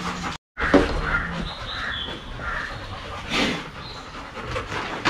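Birds calling outdoors: short, separate chirps and calls, with a brief noisy swish a little past the middle. The sound cuts out completely for a moment about half a second in.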